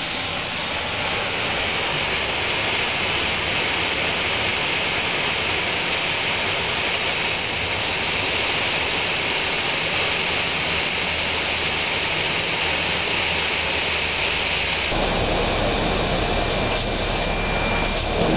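Compressed-air vacuum cleaner running with a steady, loud hissing rush of air. About fifteen seconds in the sound changes, and a low hum and thin whistling tones join it.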